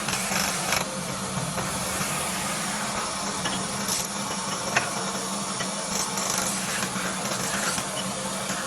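Workshop machinery running with a steady hum and hiss, with scattered light metallic clicks and one sharper click about halfway through.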